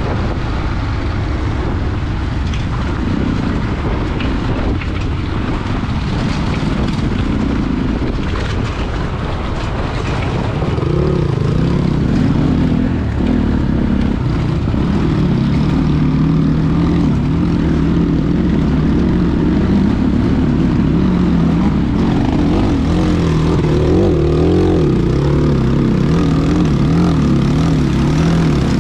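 Dirt bike engine running under way, heard from the rider's own bike. About ten seconds in it gets louder, and its pitch keeps rising and falling as the throttle is worked over the rough track and plank bridge.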